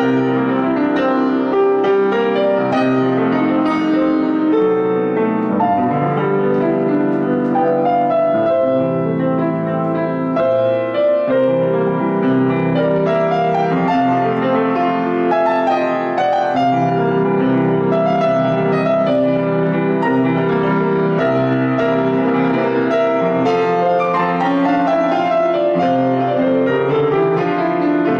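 Solo grand piano playing a flowing piece with a continuous stream of notes.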